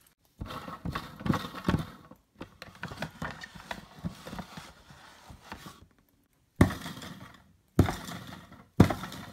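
Plastic drum of a toy bracelet maker spinning in its plastic stand, a fast run of rattling clicks for about five seconds, followed by three separate sharp plastic knocks near the end.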